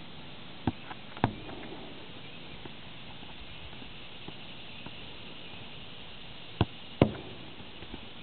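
Soccer ball kicked and striking a wall: two pairs of sharp thuds, one about a second in and one near the end. In each pair the hits are about half a second apart and the second is louder.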